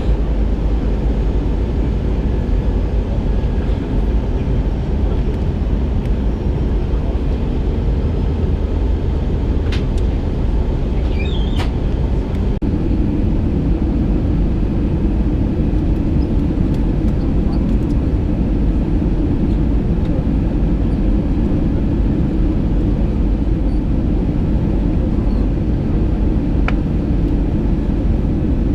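Airbus A320 cabin noise: the steady rush and rumble of the engines and airflow. The rumble grows fuller about halfway through, with a few faint clicks shortly before.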